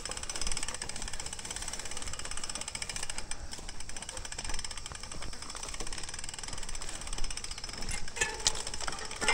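Mountain bike freewheel hub buzzing with a rapid, even clicking while coasting, with rolling noise underneath. A brief high squeak sounds near the end.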